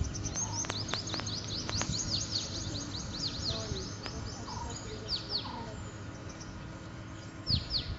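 Wild birds calling: a rapid stream of high, downward-sweeping chirps, thickest over the first few seconds and thinning to a few pairs later, with some softer, lower calls, over a low background rumble.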